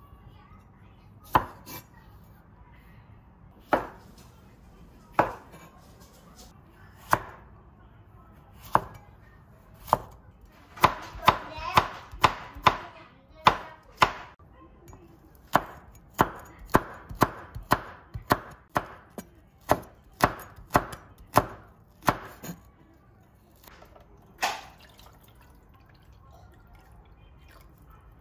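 Kitchen knife cutting on a cutting board: single sharp chops every second or two at first, then quicker runs of about two to three chops a second, with a last chop near the end.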